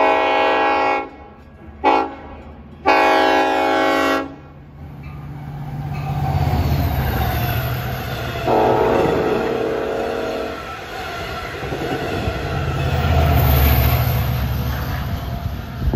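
Train horn sounding a long blast, a short one and another long one, then the rushing noise of a double-deck commuter train passing at speed, with a further, lower horn blast about halfway through.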